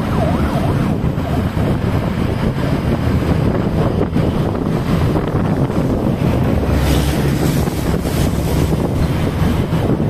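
Wind buffeting the microphone of a moving vehicle, over a steady low rumble of engine and road noise.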